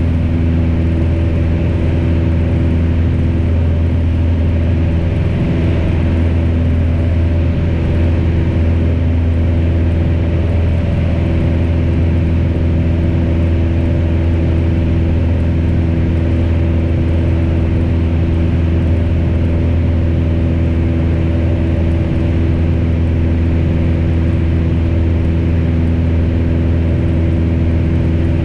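Piper PA-28's piston engine and propeller droning steadily in flight, holding an even pitch and level.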